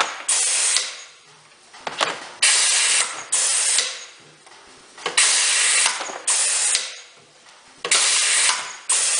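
Air-powered french fry cutter cycling. About every two and a half to three seconds a sharp click is followed by a pair of loud compressed-air hisses as the pneumatic pusher strokes a potato through the 3/8-inch knife grid.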